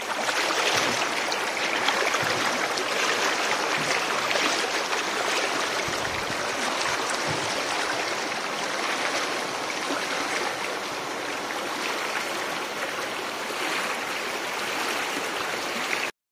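Shallow rocky stream rushing and splashing over stones in small cascades, a steady water sound that cuts off suddenly near the end.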